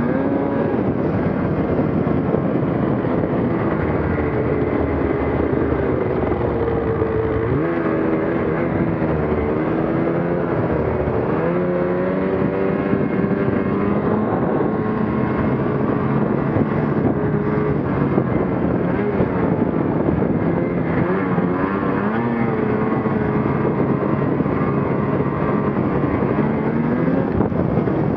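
Ski-Doo Gen 4 850 snowmobile's two-stroke engine running under way. Its pitch rises and falls with the throttle, with several quick revs up.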